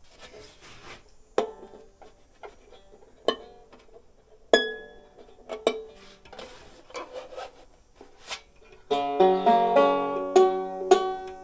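Banjo strings clicking and plinking as a new, lower bridge is worked into place under them, with a few single plucked notes. From about nine seconds in, the open strings are strummed and ring out together.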